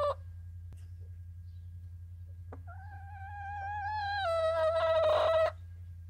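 A hen giving one long, drawn-out call of about three seconds, holding its pitch and then dropping a step near the end, just after the tail of an earlier call. A low steady hum runs underneath.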